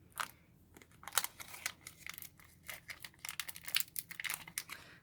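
Foil booster-pack wrapper crinkling and trading cards being handled: a run of quick, irregular crackles and taps.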